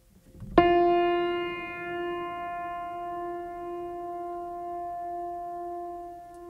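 Background music: a keyboard chord struck once about half a second in, then left ringing and slowly fading.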